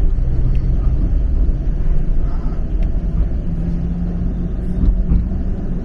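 TTC streetcar running along the track, heard from inside the car: a steady low rumble with a faint motor hum that grows clearer from about the middle on.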